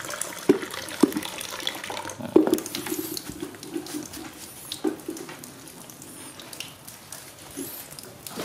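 Water running from an outdoor plastic tap and splashing onto a concrete floor. Several sharp knocks come in the first half.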